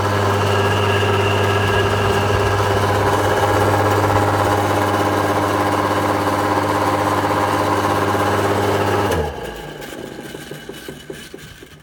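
4 kW three-phase induction motor running on 240 V single phase as a static phase converter, which works: a loud, steady, deep electrical hum with higher tones over it. About nine seconds in the hum stops abruptly, and a fainter sound dies away after it.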